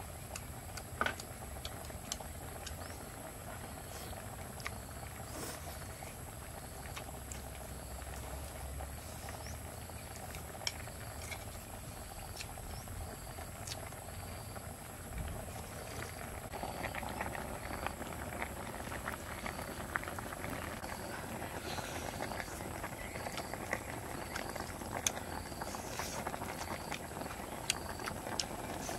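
Soup bubbling steadily in a large pot over a portable gas stove, with occasional sharp clicks of spoon and chopsticks against a plate. The bubbling grows louder about halfway through.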